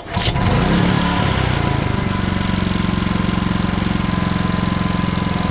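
Ryobi 3400-watt inverter generator's engine coming in loud and rising in pitch for about two seconds, then running steadily at speed.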